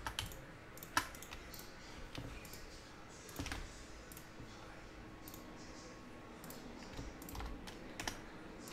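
Faint, scattered clicks and keystrokes from a computer mouse and keyboard, with a sharper click about a second in.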